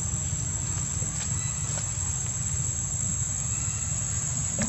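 Steady outdoor background: a constant low rumble with a continuous high-pitched insect drone above it and a few faint clicks.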